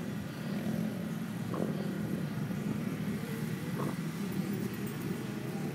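A beagle digging and nosing at a gopher hole: two short scuffs in the dirt, about one and a half and four seconds in, over a steady low rumble.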